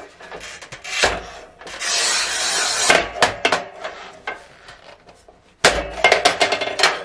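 DLT HIT-LINE manual tile cutter scoring a tile: the scoring wheel scrapes along the glaze in one steady scratching run of about a second. Near the end comes a sudden sharp crack with a low thump as the tile is snapped along the score, followed by quick clicks and rattles of the cutter.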